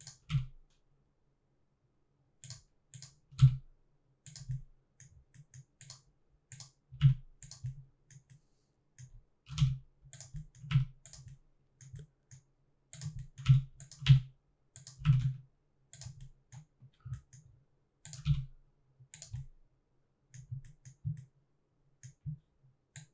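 Computer keyboard keys and mouse buttons clicking in irregular clusters of taps.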